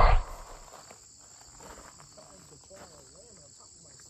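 A steady, high insect chorus of crickets or cicadas from the trees. At the very start a loud shout cuts off, and then only the insect chorus remains.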